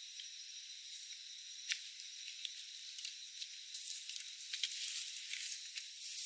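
Footsteps swishing and crackling through tall grass on a trail, scattered at first, then denser and louder from about four seconds in as the walker passes close. A steady high thin drone runs underneath.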